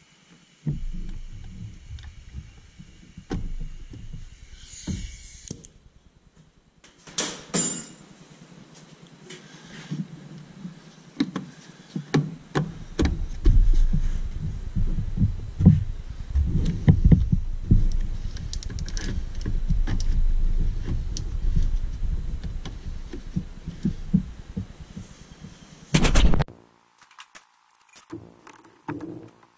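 Hands working under a pickup's hood: irregular clicks, knocks and low thumps as the plastic cover of the TIPM fuse box is closed and wiring is handled, with a sharp knock about seven seconds in and another near the end.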